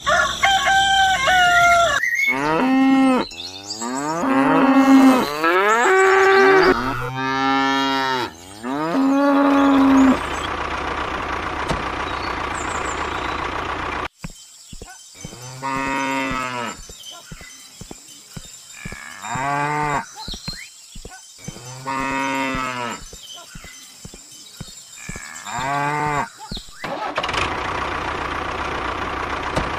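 Cattle mooing, about ten separate long moos in two bunches. Between the bunches a steady engine-like hum runs.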